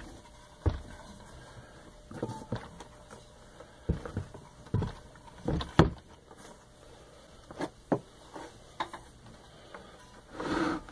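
Irregular knocks and bumps as a heavy Baldor electric motor is turned over and shifted by hand on a wooden workbench, with a longer scrape near the end. The motor itself is not running.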